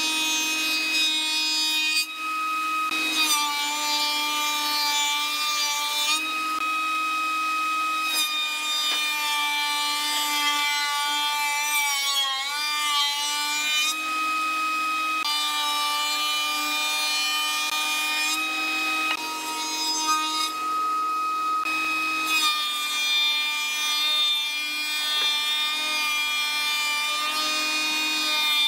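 Spindle shaper running and cutting a hardwood handrail blank fed past it by a power feeder: a steady high machine whine over the rasp of cutting, the pitch sagging and wavering briefly about twelve seconds in as the cut loads it. The tone shifts abruptly every few seconds.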